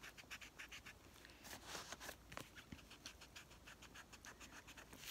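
Graphite pencil scratching on a sketchbook page in quick, even back-and-forth strokes, about five a second, with a short break in the rhythm in the middle.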